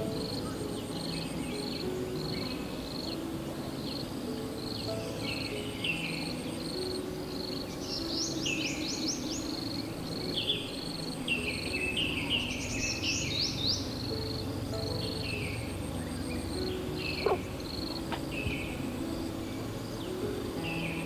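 Forest ambience: a cricket chirping steadily and birds singing on and off, busiest in the middle, over soft background music with slow held low notes. One sharp click sounds near the end.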